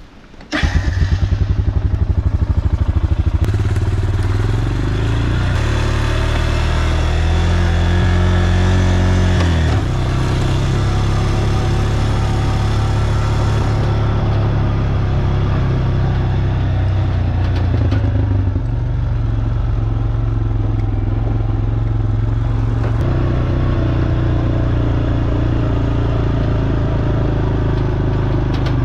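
Vehicle engine starting up about half a second in and running loudly while being driven, its pitch rising and then dropping sharply about ten seconds in and shifting again a couple of times later.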